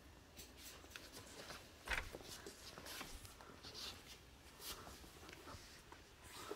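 Faint scattered clicks and rustles of someone moving about, with one sharper knock about two seconds in, against a quiet room background.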